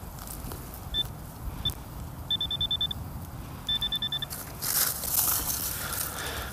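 Handheld metal-detector pinpointer beeping at one high fixed pitch as it probes a plug of soil: two single beeps, then two quick runs of rapid beeps as it closes on a metal target. A short rustling scrape of soil and grass follows near the end.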